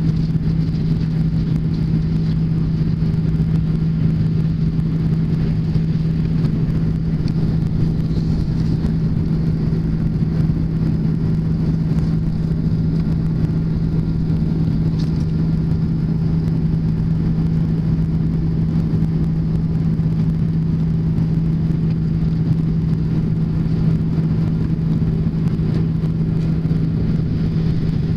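Airbus A330/340 cabin noise in flight: the jet engines and airflow make a steady drone, with a constant low hum over a rumble.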